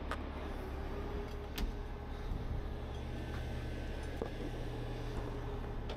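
Heavy rotator tow truck's engine running at a steady idle, a continuous low drone, with a couple of sharp clicks, one at the start and one about a second and a half in.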